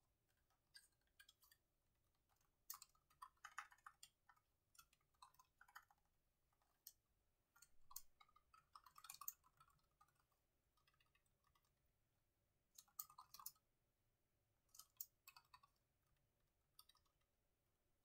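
Faint typing on a laptop keyboard: irregular runs of soft key clicks with short pauses between them.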